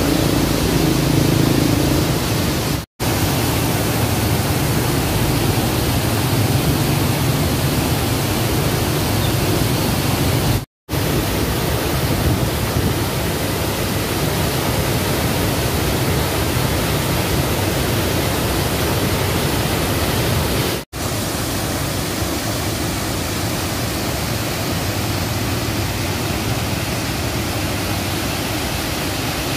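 River water pouring through the sluice gates of a weir and over the rocks below: a loud, steady rush of white water at a modest flow. It is broken three times by a brief silent gap.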